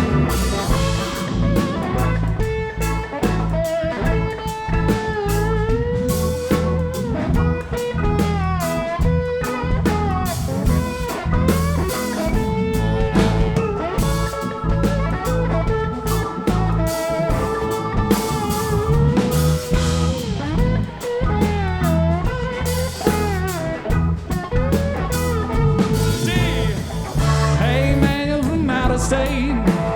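Live blues-rock band playing an instrumental break: a lead guitar solo with bent notes over bass and a steady drum kit beat.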